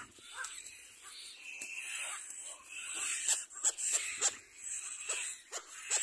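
Little black cormorant chicks begging while the parent feeds them at the nest: a quick, uneven run of short, high calls over a steady hiss.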